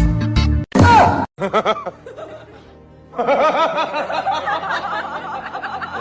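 Music that cuts off under a second in, then from about three seconds a rapid run of high-pitched snickering laughter, about four or five quick giggles a second.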